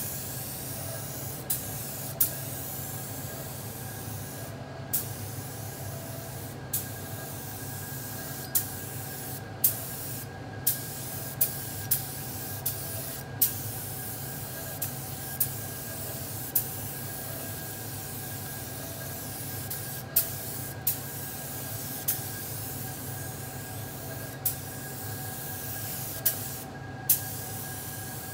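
Spray gun hissing steadily as it mists a thin coat of clear leather lacquer onto a leather seat, with a steady tone running through the hiss. The hiss cuts out briefly many times, and sharp clicks come about twenty times.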